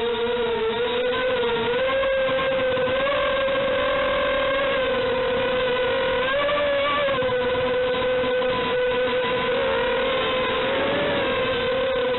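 FPV quadcopter's electric motors and propellers buzzing steadily in flight, the pitch rising and dipping slightly with the throttle.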